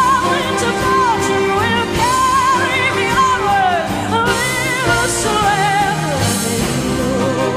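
A woman's solo singing voice with wide vibrato on long held notes, backed by an orchestra.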